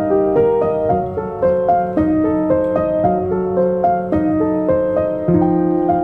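Background piano music: a gentle melody of notes in a steady flow over held low chords.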